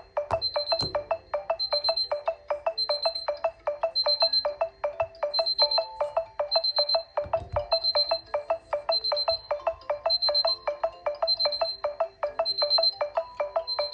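Smartphone ringtone and alarm melodies sounding together: a fast run of short plucked electronic notes repeating without pause, with a high beep recurring about once a second over it.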